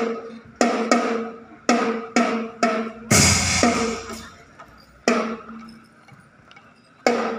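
Marching drums of a school drum band playing a run of separate accented strikes, snare and bass drum together, with a heavier, longer-ringing hit about three seconds in. The hits then thin out to one near the middle and one near the end.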